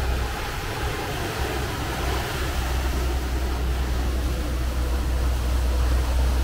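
Sportfishing boat's engine running steadily at trolling speed, a low drone under the rushing wash of the wake behind the stern.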